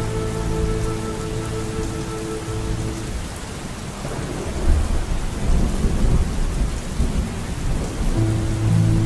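Steady rain with a long, deep peal of thunder in the middle, about four to seven seconds in. Sustained music notes fade out about three seconds in and a new phrase starts near the end.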